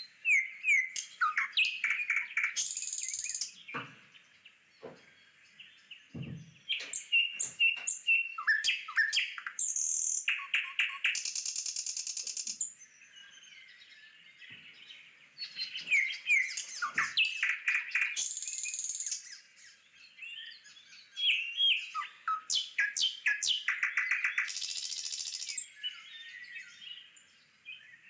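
Birds chirping and trilling in repeated bursts of quick notes, broken by several short harsh hissing calls about a second long and brief quieter gaps.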